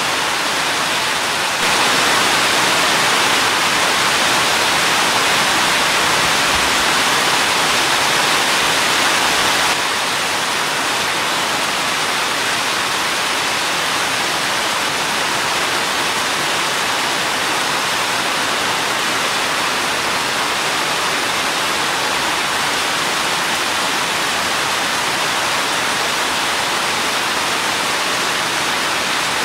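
Steady rain falling as a dense, even hiss with no separate drops or thunder. It is a little louder from about two seconds in until about ten seconds in, with abrupt steps up and down.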